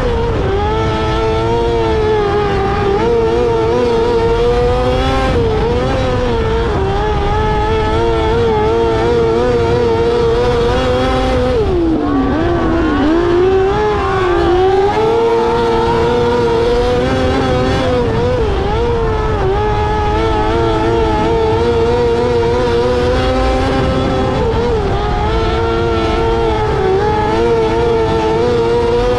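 Micro sprint car engine, a 600cc four-cylinder motorcycle engine, running at high revs under racing load. The pitch wobbles up and down, with a deeper dip in revs about twelve seconds in before it climbs back.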